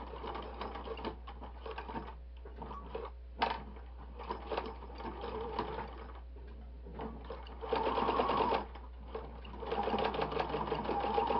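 Household electric sewing machine running a straight stitch in stop-start bursts, with two longer runs near the end.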